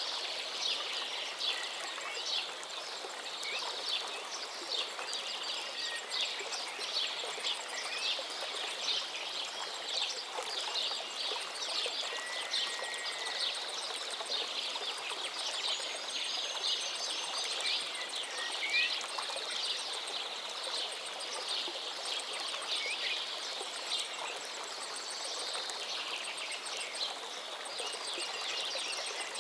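Many small birds chirping rapidly in a dense, busy chorus of short high notes, with a few longer whistled glides in the middle, over a steady background hiss.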